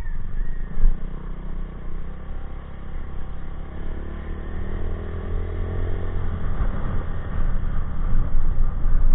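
Honda Click 125i scooter's single-cylinder engine, fitted with an aftermarket Exos X6 exhaust, running hard under throttle on a top-speed run. The engine note rises faintly in the middle, under a heavy, steady rumble of riding wind and road noise.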